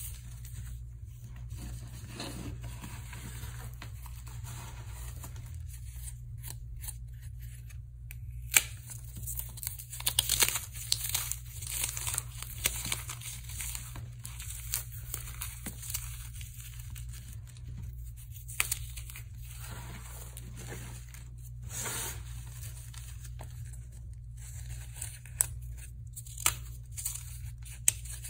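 Dry floral foam, coated in hardened Comet-cleanser and cornstarch paste, crushed and crumbled between the fingers: a dense run of crisp crackles and crunches, with louder sharp snaps here and there as pieces break.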